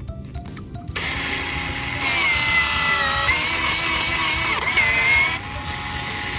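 Electric power tool motor running under load, starting abruptly about a second in, speeding up a second later, with its pitch dipping and recovering twice before it eases off and winds down near the end.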